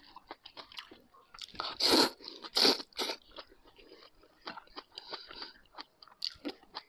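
A person eating noodles: two loud slurps about two seconds in, then chewing with small wet mouth clicks, and another short slurp near the end.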